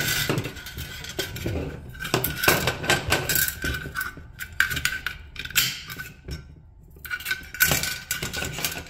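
Flat steel recoil-starter spring of a Johnson 5.5 HP outboard rattling and clinking against itself and the aluminum starter housing as it is wound back in by hand. There is a brief lull about six seconds in.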